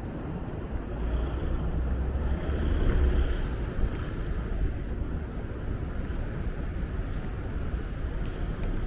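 City street traffic: vehicles passing with a low rumble that swells about two to three seconds in. A brief high-pitched whine sounds about five seconds in.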